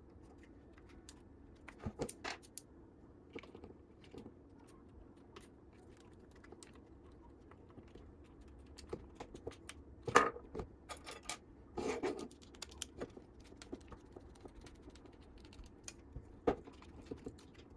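Small clicks and taps of 3D-printed TPU parts, metal plates and screws being handled and fitted together on a small robot, with a few louder knocks, the loudest about ten seconds in.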